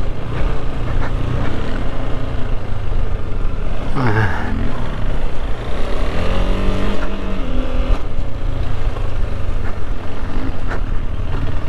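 KTM 390 Adventure's single-cylinder engine running under load while riding off-road, with a steady rush of wind and tyre noise over it. The pitch swings with the throttle, dropping sharply about four seconds in.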